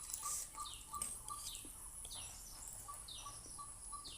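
Faint bird calls: one short note repeated about three times a second, pausing briefly near the middle, with a few higher chirps that slide down in pitch.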